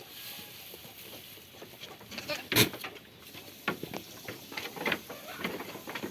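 Goats moving and feeding, making short irregular clicks and knocks that grow busier after about two seconds, with one sharp knock about two and a half seconds in.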